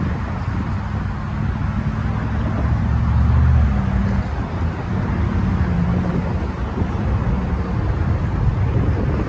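Cars and pickup trucks driving over a railroad grade crossing, their engine and tyre noise swelling and fading, loudest about three seconds in. Wind is buffeting the microphone.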